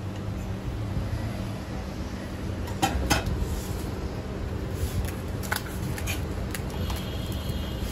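Metal utensils clinking and tapping a few times, sharpest about three seconds in, over a steady low background hum.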